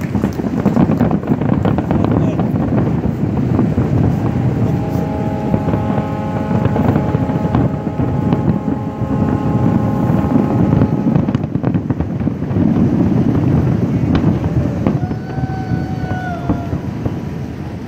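Fireworks finale: a dense, continuous barrage of booms and crackles from many shells bursting at once, heard across the distance as one long rumble that eases off near the end. A steady horn-like tone sounds for several seconds in the middle.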